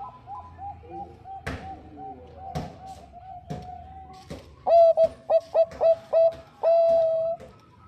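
Thai-bred zebra dove (perkutut bangkok) cooing. A soft, quick run of short notes comes first, with a few sharp clicks. Then a loud, close bird gives six short coos and one long held coo.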